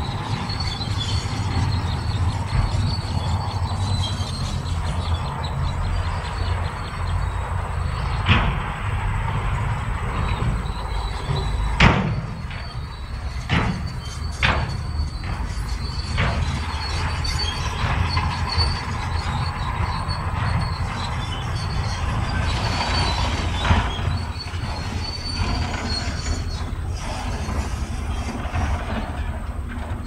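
Crawler bulldozer at work: its diesel engine runs steadily under a thin, steady high squeal from the steel tracks, with a handful of sharp clanks near the middle.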